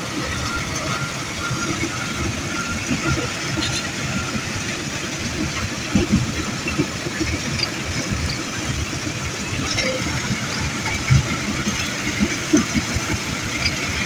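Heavy diesel dump-truck engines running and idling, a steady low rumble broken by irregular clunks and rattles.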